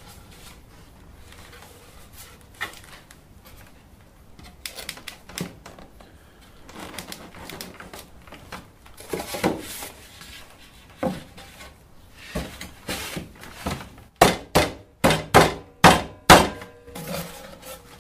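Polystyrene hive box panels knocked and clunked together as the glued sides are fitted. Scattered knocks come at first, then a quick run of about seven louder knocks near the end.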